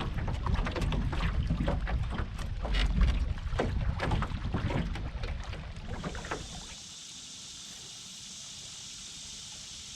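Knocks, clicks and rustling of handling aboard a small fishing boat, with wind rumbling on the microphone. After about six and a half seconds these stop and a steady high hiss takes over.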